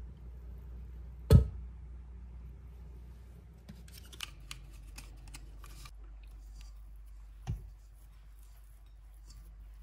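A heavy knock about a second in as the tilt-head of a KitchenAid stand mixer is raised to its upright stop, then small sticky clicks as dough is pulled by hand off the dough hook, and a second, softer knock near the end.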